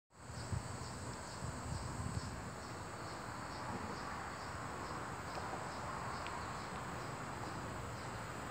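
Insects chirping in the trees, a steady high-pitched buzz with a pulsing chirp at about three a second, over a low rumble with a few low thumps in the first two seconds.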